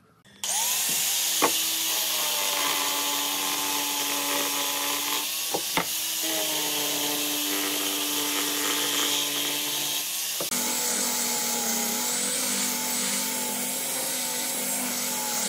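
Angle grinder with a sanding disc running and sanding a wooden board: a steady motor whine over the hiss of the disc on wood. It starts about half a second in, with a brief break about six seconds in and a change in tone near ten seconds.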